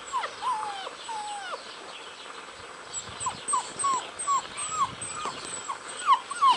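Puppies whining and whimpering: a few drawn-out falling whines in the first second and a half, then a quick run of short whimpers, about three a second, from about three seconds in.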